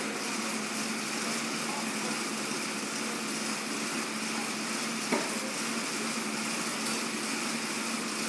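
Assault air bike's fan wheel whirring steadily as the rider pedals and pushes the handles hard through a sprint, with a single knock about five seconds in.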